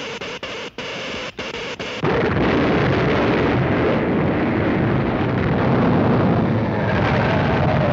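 Cartoon sound effects: an electric crackle that stutters on and off, then about two seconds in a loud, continuous explosive rumble as a building collapses.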